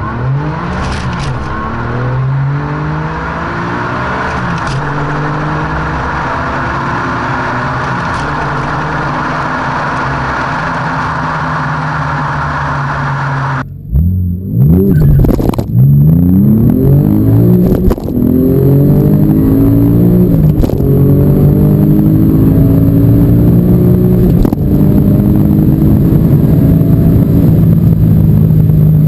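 Twin-turbo flat-six of a tuned Porsche 996 Turbo under full acceleration, its pitch climbing in each gear and dropping back at each upshift of the six-speed manual. The first half is a long pull at high speed over a steady rush of wind and road noise. After an abrupt cut comes a fresh run with quick upshifts every few seconds.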